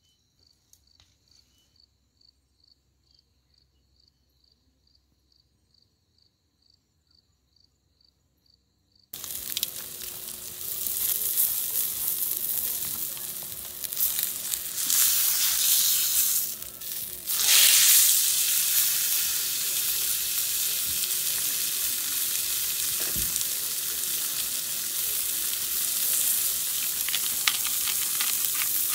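About nine seconds of near silence with faint regular ticking, then a bone-in steak sizzling loudly on a ridged grill pan over a charcoal fire. The sizzle starts suddenly and swells louder twice midway as the steak is handled with tongs.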